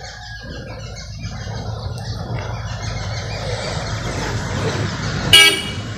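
A road vehicle approaching, its rumble slowly growing louder, with faint bird chirps early on. A short horn toot comes near the end.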